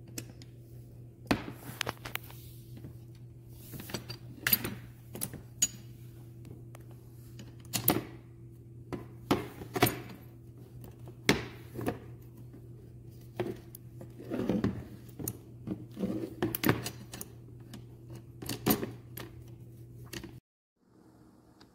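Aluminium poles and plastic corner hubs of a ROCK CLOUD ultralight folding camp table frame clicking and knocking together as the frame is handled: irregular sharp clicks and clacks, over a steady low hum that cuts off near the end.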